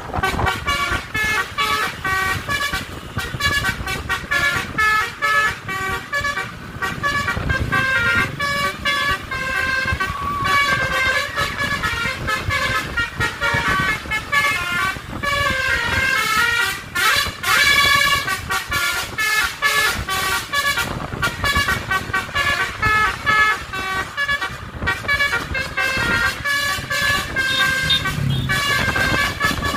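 Basuri-type telolet multi-tone bus horn playing a melody, note changing quickly after note, with a few sliding notes about halfway through, over the rumble of road traffic.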